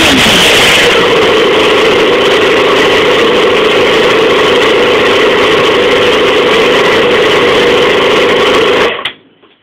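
Yamaha YZF-R6 sport bike's inline-four engine running loud and steady at held revs after a rev settles, then stopping near the end.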